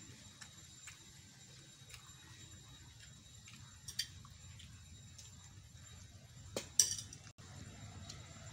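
Man eating rice by hand off a banana leaf: faint scattered clicks and smacks of eating. A small stainless-steel tumbler clinks lightly about four seconds in, and a louder sharp clink comes near seven seconds.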